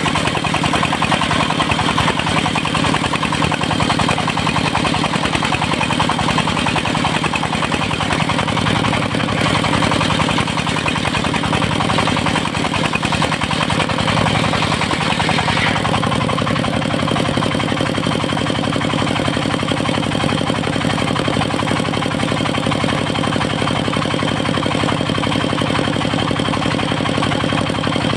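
Engine-driven mobile circular sawmill running with a steady drone. About 15 seconds in the sound shifts: a higher-pitched part drops away and the lower drone carries on.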